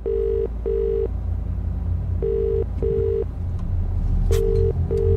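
Telephone ringback tone as heard by the caller: a double beep repeated three times, about two seconds apart, the line ringing at the other end without being answered. A steady low rumble runs underneath.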